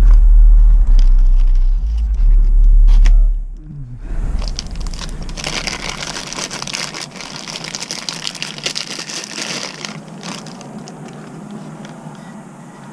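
A loud low rumble for the first three seconds or so, then a thin plastic bag crinkling and rustling for about six seconds as a camera lens is pulled out of it, dying down near the end.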